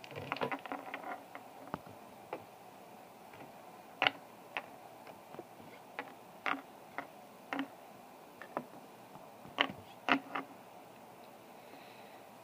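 Light plastic taps and clicks of a small Littlest Pet Shop toy figure being hopped across a tabletop: a quick flurry of clicks in the first second, then single sharp taps every half second to a second.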